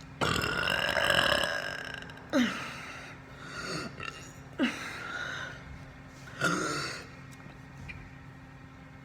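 A person burping repeatedly: one long burp of about two seconds, then three shorter burps about two seconds apart, each starting abruptly and dropping in pitch.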